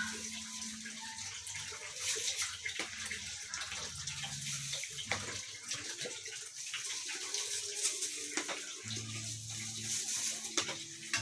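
Hot oil sizzling and crackling steadily as spiral-cut tornado potatoes deep-fry, with a low hum coming and going underneath.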